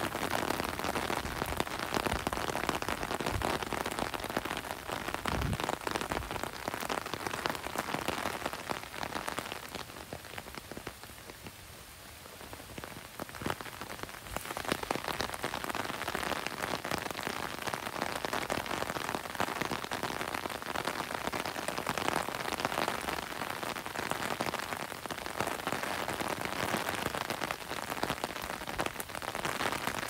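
Steady rain, with a dense patter of individual drops hitting close by. It eases to a softer hiss for a few seconds about ten seconds in, then picks back up.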